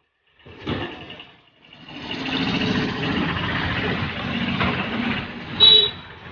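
A motor vehicle's engine running close by for a few seconds as it moves along the street, followed near the end by a brief, loud, high-pitched sound.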